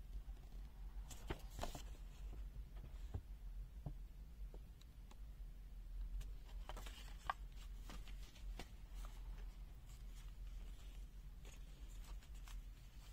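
Faint scattered clicks and short rustles, like hands handling a small object, over a steady low hum.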